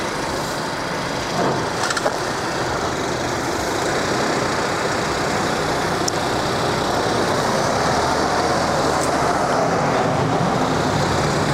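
Steady vehicle noise of cars running on a street, slowly growing a little louder, with a pickup truck driving past close by near the end.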